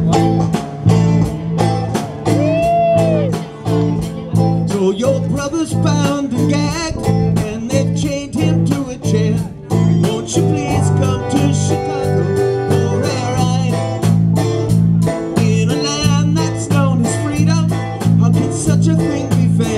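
Live band playing amplified: electric guitars and bass guitar over a drum kit and keyboard, with a steady drum beat.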